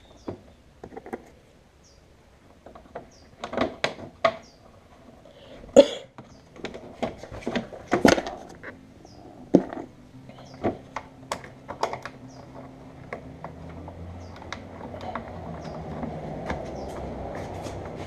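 Clicks and knocks of hard plastic parts being handled and fitted as a Jeep Grand Cherokee tail light assembly is put back in place, the loudest knocks about six and eight seconds in. From about halfway a steady low hum with a few held tones comes in and slowly grows louder.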